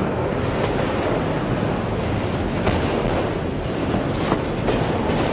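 Freight train cars rolling past close by: a steady rumble of wheels on rail, with a few irregular clicks as wheels cross rail joints.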